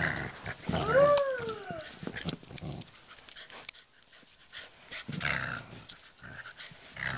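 Cocker spaniel growling as she tugs and shakes a rope pull toy in play. About a second in she gives a short pitched cry that rises and then falls; after a quieter stretch the growling starts again around five seconds in.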